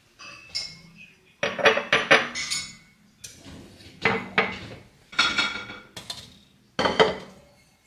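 Clinking and clattering of hard objects in about five short bursts, each starting suddenly, with a ringing edge.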